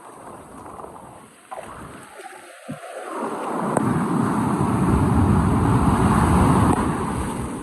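Rushing noise of sea and wind at the shore, swelling about three seconds in to a loud, deep rush and easing near the end.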